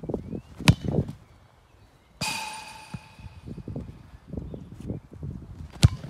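Running footsteps on grass and two sharp kicks of a football, one shortly after the start and one near the end. About two seconds in, a ringing metallic clang fades out over about a second, as a ball strikes the metal goal frame.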